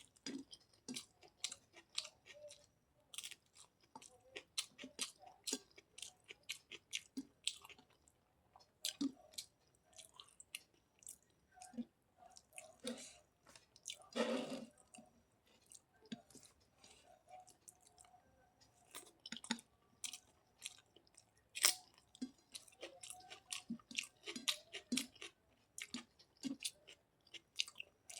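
A person chewing food with wet mouth smacks and clicks coming fast and irregularly throughout. About halfway through comes one longer, louder sound of about a second.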